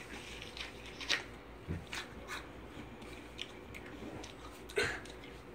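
A few faint, scattered clicks and crunches over quiet room tone, with a louder one near the end.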